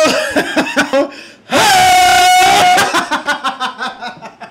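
A man laughing in quick bursts, then a long high-pitched held cry about one and a half seconds in, then more laughter bursts that fade away and cut off suddenly.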